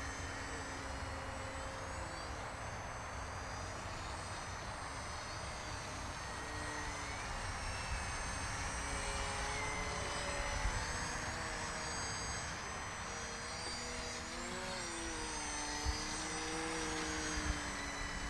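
Small electric RC aerobatic airplane, an E-flite Edge 540 QQ, flying: the electric motor and propeller whine, the pitch rising and falling with throttle and as the plane passes.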